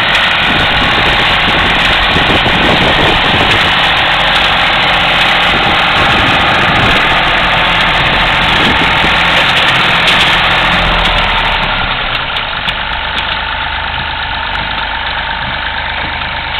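An engine running steadily, with a rough pulsing in its low end over the first several seconds. It drops slightly in level about twelve seconds in.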